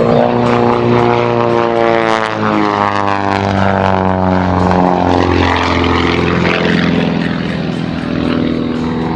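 Pitts S1S aerobatic biplane's piston engine and propeller running hard in flight. The pitch shifts as it manoeuvres, dropping noticeably about two seconds in.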